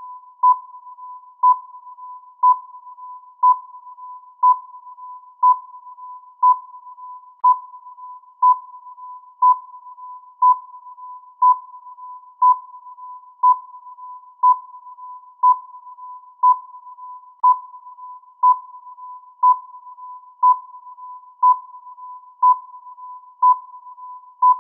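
Electronic countdown-timer tone: a steady high beep with a louder pulse once every second, counting off the seconds.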